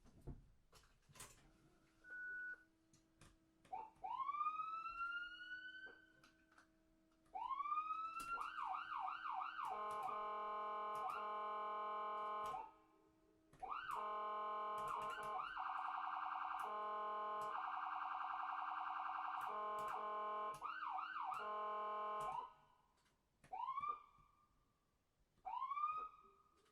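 Ambulance's electronic siren running through its tones. It starts with a few rising sweeps, moves into quick repeated sweeps and long held tones with a fast warble in the middle, then winds down into short upward sweeps. Sharp clicks sound between the changes.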